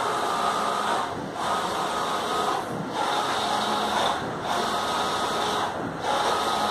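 Large-format inkjet printer printing a banner: its print-head carriage runs back and forth with a steady mechanical hum, one pass about every one and a half seconds, with a brief drop in sound as the carriage turns between passes.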